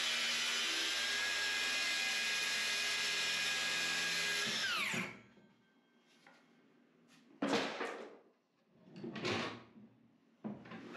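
Circular saw cutting across an old wooden door, running steadily. About five seconds in the trigger is released and the motor winds down with a falling whine. Later come two short handling noises.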